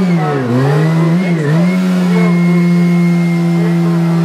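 An engine running steadily with a strong hum. Its pitch drops sharply and recovers twice in the first two seconds, then holds steady.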